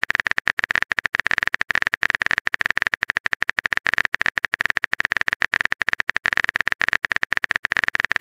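Phone keyboard typing sound effect: a rapid, even run of short clicks with a bright high pitch, running on without a break.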